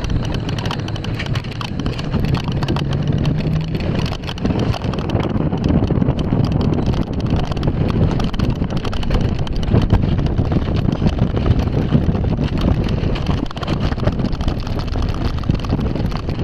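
Bobsled coaster car rolling down its track, its wheels rumbling and rattling continuously, with wind buffeting the microphone.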